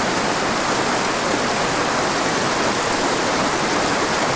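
Swift river running steadily over rocks in shallow whitewater rapids close by.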